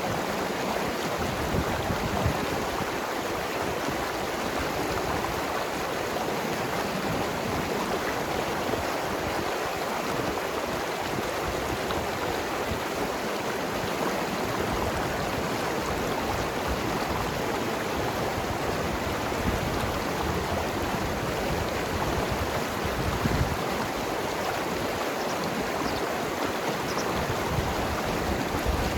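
Mountain river flowing and gurgling over rocks: a steady rush of water.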